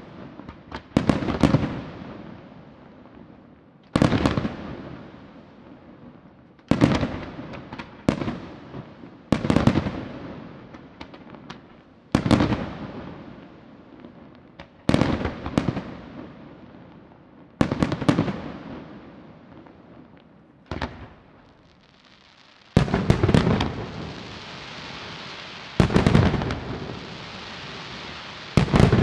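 Aerial firework shells bursting, a loud bang every two to three seconds, each followed by a rolling echo that fades away. From about three-quarters of the way in, a steady hiss carries on under the bangs.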